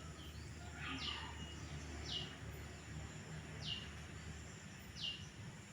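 A bird repeating a short, high chirp that falls in pitch, about once a second, over a low steady hum.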